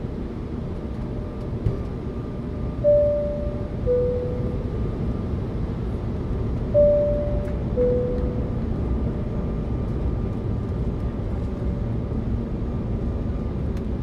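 Airliner cabin seatbelt-sign chime sounding twice, about four seconds apart, each a higher tone followed by a lower one that fades away. Under it runs the steady low rumble of the aircraft cabin.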